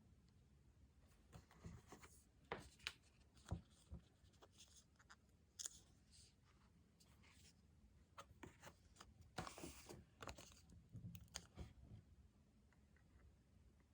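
Stationery handling for diary decorating: scattered light taps and crinkles of paper and stickers, with a longer rustle about ten seconds in.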